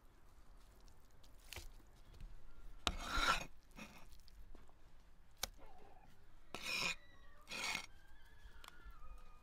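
A cleaver blade scraping across a wooden chopping block as minced beef liver is gathered into a heap: several short rasping scrapes, the loudest about three seconds in, and a sharp knock of the blade on the wood midway.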